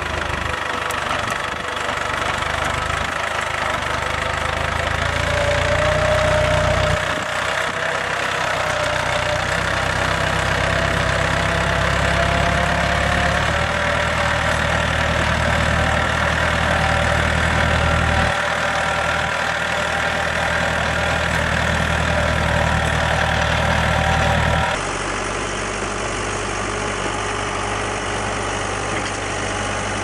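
Compact tractor's engine running steadily under load while driving a PTO rotary tiller through soil, with a steady whine above the engine. About 25 seconds in, the sound switches abruptly to a different tractor engine running.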